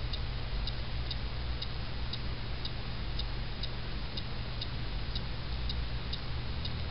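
Faint, even ticking, about two ticks a second, over a low steady hum.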